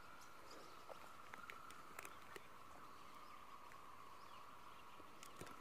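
Faint, steady drone of a distant animal chorus, with a few soft ticks scattered through it.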